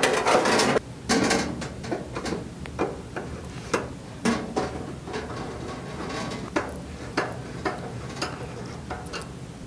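Sheet-metal reflector cover rattling and scraping as it is fitted back into a metal light-fixture housing, louder in the first second or so, then a run of light metallic clicks and taps as it is pressed into place.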